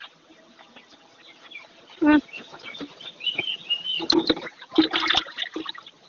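Farmyard birds chirping and calling in short bursts, with a brief human call about two seconds in.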